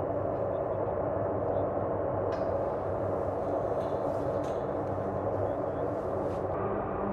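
Steady drone of many military transport aircraft engines, C-130 turboprops among them, as the aircraft taxi in a close formation.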